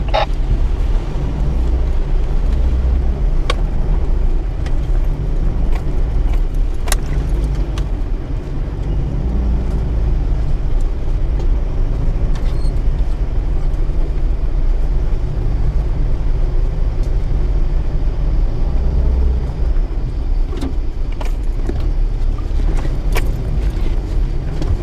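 Mitsubishi Triton heard from inside the cab while driving off-road, with a steady low engine and drivetrain rumble. Occasional sharp knocks and rattles come from the body and loose gear, about half a dozen through the stretch.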